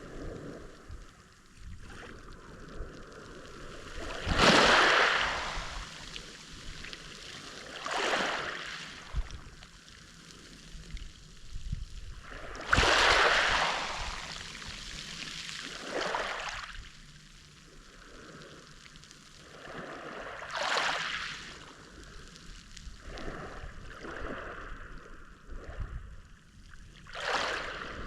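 Mediterranean sea waves washing onto the shore, a surge of wash rising and falling about every four to five seconds.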